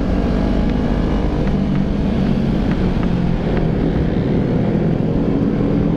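Sport motorcycle engine running at a steady cruise, with wind rushing over the microphone.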